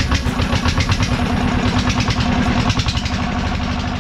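Single-cylinder diesel engine running steadily, with a fast, even firing beat. It is one of two engines that are said to run weak and to die under load.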